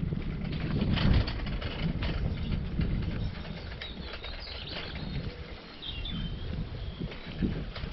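Bicycle tyres rolling and crunching over light gravel. A bird chirps faintly a few times around the middle.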